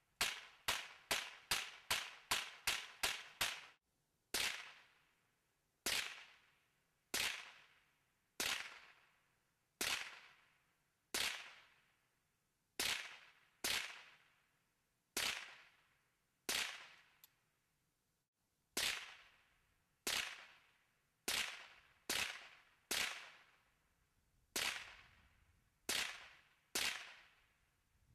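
Gunshots, each ringing out in a fading echo. About ten rapid-fire shots come in under four seconds, then single shots follow roughly every second or so.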